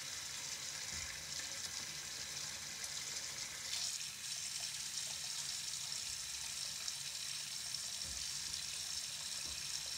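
Water running steadily in a stainless steel kitchen sink around a floating saucepan, an even hiss with no knocking from the pan.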